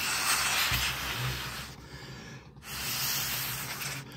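Paper tissue rubbing against the plastic loudspeaker cabinet, wiping dust off it in two long scrubbing passes with a short pause about two seconds in.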